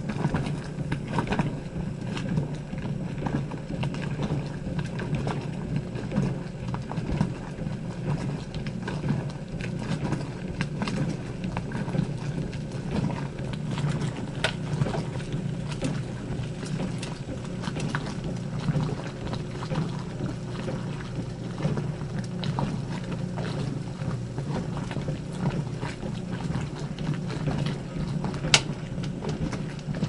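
Old washing machine running: a steady low hum with irregular small clicks and knocks throughout, and one sharper click near the end.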